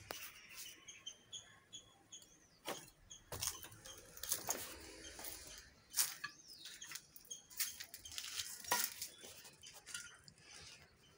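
Footsteps crunching and crackling over dry leaves, twigs and broken roof-tile pieces on a debris-strewn floor, in irregular snaps and clicks. A few short high chirps repeat in the first couple of seconds.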